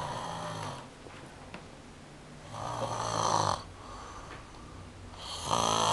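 A sleeper snoring: three snores about two and a half seconds apart, each lasting about a second, the one near the end the loudest.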